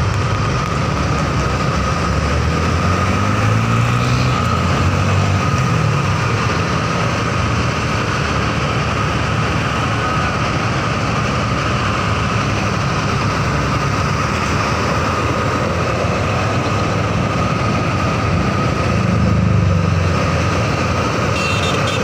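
Vehicle engines and road noise while riding close behind a Mercedes-Benz intercity coach, with a steady whine; the engine note rises briefly about three seconds in and again near the end.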